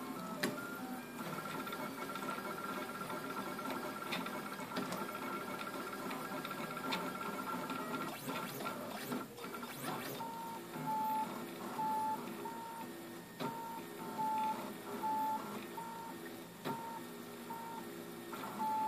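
RepRap 3D printer's stepper motors running, first with a steady whine, then from about ten seconds in as short repeated tones, roughly two a second, as the moves switch direction. Scattered sharp clicks come through over the whine.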